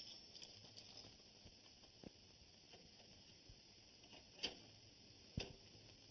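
Faint clicks and knocks as a safe's combination dial and handle are worked by hand, the two sharpest about four and a half and five and a half seconds in, over the steady hiss of an old film soundtrack.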